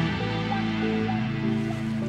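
Background music of held notes, with the chord changing shortly after the start.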